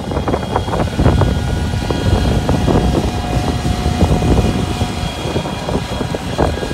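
Engine of an RNLI tracked launch vehicle running steadily as it tows the inshore lifeboat on its trailer across the sand. A low rumble with a steady whine of several tones above it.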